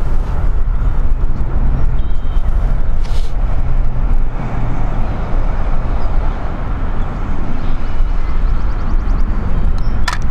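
Wind buffeting the microphone: a loud, steady low rumble that rises and falls in gusts.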